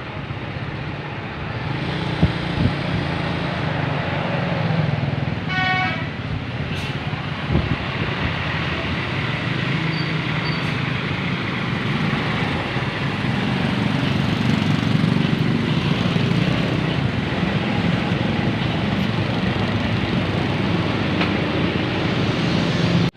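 Large bus engine running close by amid road traffic, slowly growing louder, with a brief horn note about six seconds in.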